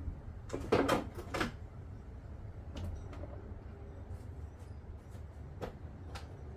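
Plastic interior trim being handled and pushed into place: a quick run of clicks and knocks about a second in, then a few single clicks later, as the panel fails to seat at first.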